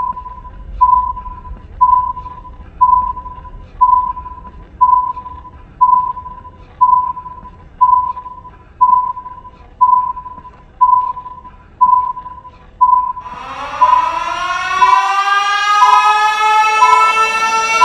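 Electronic beeps at one steady pitch, about one a second, like a countdown alarm. About two-thirds of the way in, a siren starts wailing upward in pitch and grows louder over the beeps.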